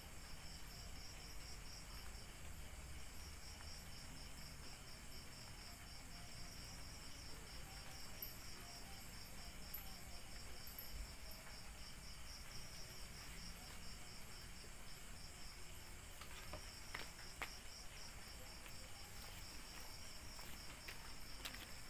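Night insects chirping in a steady, high, rapidly pulsing trill, with short breaks twice. A few faint clicks come in the last few seconds.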